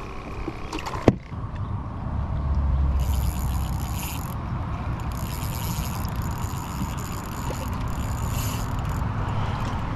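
Steady water and hull noise from a kayak on the water, with a sharp click about a second in.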